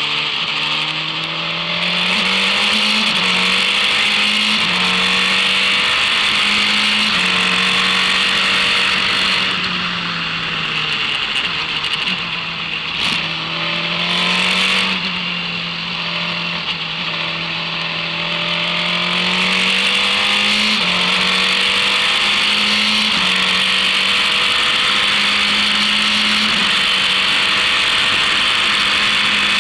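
Formula race car engine running hard at racing speed, its pitch stepping and sliding up and down with gear changes. About ten seconds in the revs drop away as the car slows, then climb back up and stay high.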